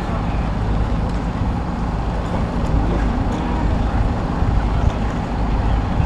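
Steady low rumble of city background noise outdoors.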